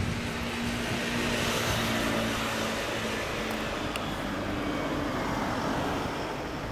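Kawasaki Zephyr 1100's air-cooled inline-four idling steadily through a Kerker 4-into-1 exhaust. A broad rush of noise swells and fades about a second or two in.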